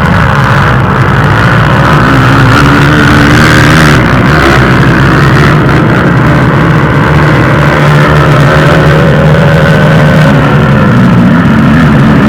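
Several sport quad (ATV) engines running hard in a race, loud and steady, with the pitch wavering as riders rev and ease off.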